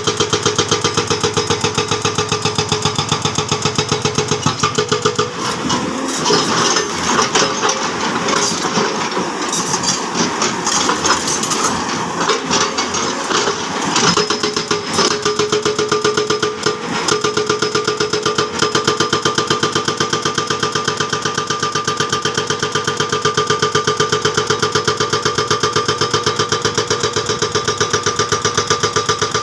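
Hydraulic breaker on a Sany excavator hammering in a fast, even rhythm over the excavator's running diesel engine. A rougher, noisier stretch runs through the middle before the steady hammering returns.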